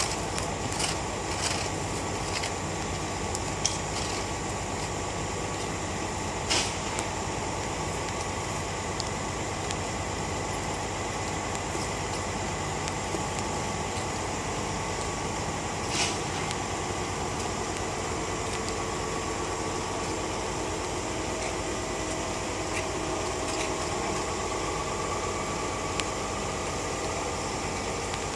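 Caterpillar 374 excavator's Cat C15 ACERT diesel running steadily at idle. A few sharp knocks come from wooden planks being handled and laid on the road.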